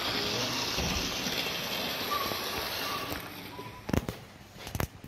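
Model LNER A4 locomotive (No. 4498) running along the layout track with coaches, a steady motor-and-wheel noise that fades about three seconds in. A few sharp clicks follow near the end.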